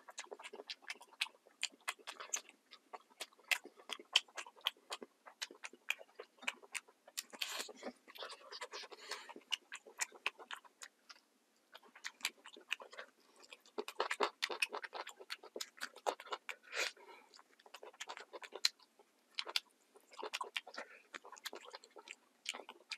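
A person chewing food with the mouth open, a steady run of wet smacking and clicking mouth sounds.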